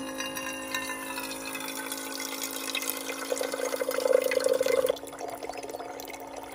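Small battery-powered water-jug dispenser pump running with a steady hum, pumping water through its spigot so that a thin stream splashes into a stainless steel pot. The splashing grows louder a few seconds in, then drops back near the end.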